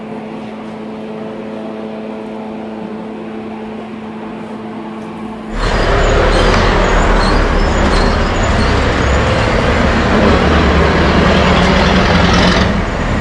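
A steady hum, then about halfway a loud sizzling hiss starts suddenly as the octopus sisig is mixed on a hot griddle, stopping abruptly near the end.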